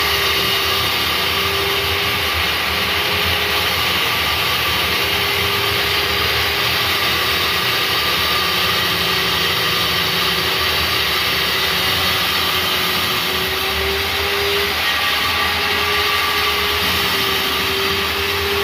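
Rig-mounted electric core drill running steadily as it cuts an exhaust-fan hole, a continuous motor whine over grinding noise, the pitch wavering slightly as the bit is fed.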